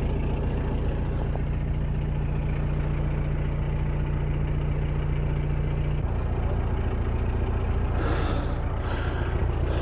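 Narrowboat diesel engine running steadily, a low even hum whose tone shifts slightly about six seconds in.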